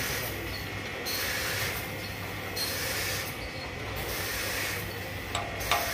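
Band sawmill running: a steady low hum from the drive with a high hiss of the blade that swells and fades about every second and a half. A few sharp clicks or knocks come near the end.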